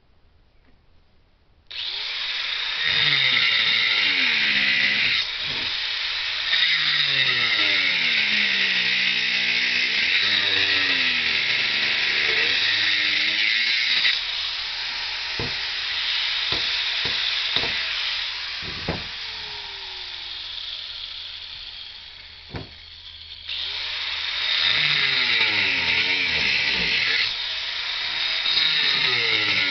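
A handheld power tool cutting masonry and throwing up dust. It starts about two seconds in, and its whine repeatedly sags in pitch and recovers as the blade bites. A quieter stretch in the middle holds a few sharp clicks, and then the cutting starts again.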